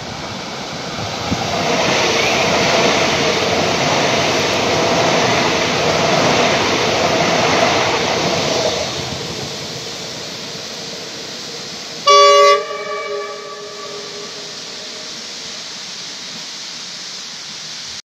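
A PRASA X'Trapolis Mega electric multiple unit runs past on the rails for several seconds, then fades away. About twelve seconds in comes one short, loud horn blast, which echoes briefly.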